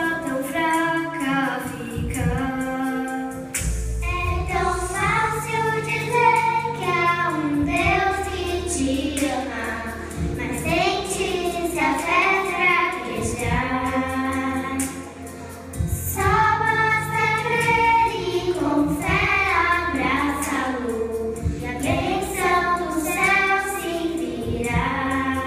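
Children's choir singing a song with a steady instrumental backing that comes in about four seconds in.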